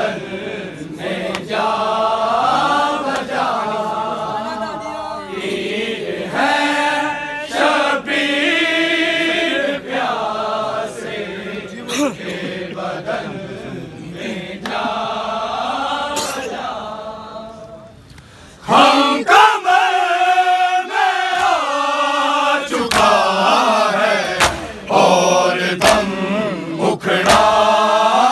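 Men chanting a noha, a Shia mourning lament, together in unison with no instruments, with occasional sharp slaps. The chant drops away briefly about two-thirds of the way through, then comes back louder.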